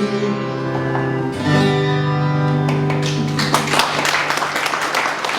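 Final guitar chords of a folk song ringing out, with a held note ending in the first half second. Audience applause breaks in about three and a half seconds in as the chords fade.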